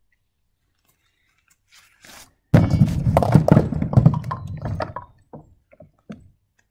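Bowling ball rolling along a wooden plywood lane and crashing into bowling pins: a loud rumble and clatter of wooden impacts starting suddenly about two and a half seconds in, then a few separate knocks near the end as pins topple and settle.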